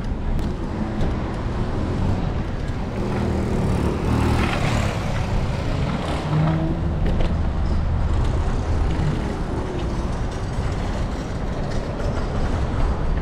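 City street traffic noise: a steady low rumble of vehicles, with a louder rush, like a vehicle passing close, about four to five seconds in.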